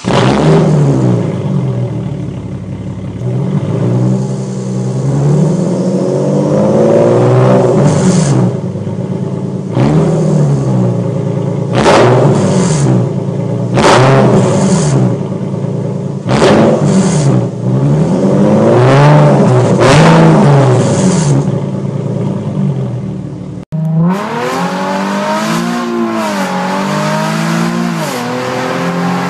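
Nissan 370Z's 3.7-litre V6 revved again and again at standstill through a loud straight-piped exhaust, each rev climbing and falling back with sharp crackles at several of the peaks. About 24 seconds in it changes to the engine heard from inside the cabin under acceleration, the note climbing, dropping once at a gear change and climbing again.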